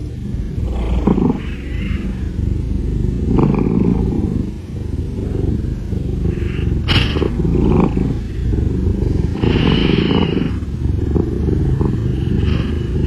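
A cat coughing and hacking in repeated harsh bouts a second or few apart, over a steady low rumble.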